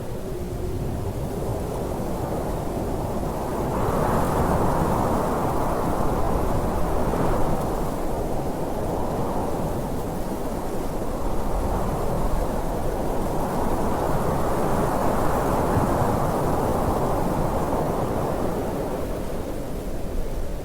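Strong mountain wind blowing in gusts: a low, rushing noise that swells about four seconds in, then rises and falls in slow waves.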